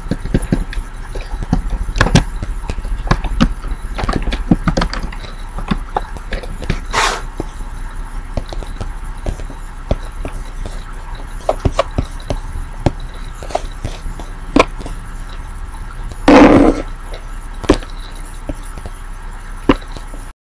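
Computer keyboard typing and mouse clicks: irregular short clicks over a steady low hum. About sixteen seconds in there is one louder, brief thud.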